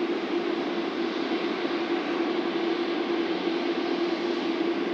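Boeing 747-8F freighter's four GEnx-2B turbofan engines at low taxi thrust, a steady rushing noise with a steady droning tone underneath.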